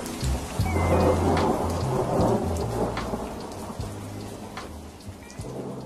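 Rain-and-thunder ambience: steady rain with a rumble of thunder that swells about a second in, then eases off over the next few seconds.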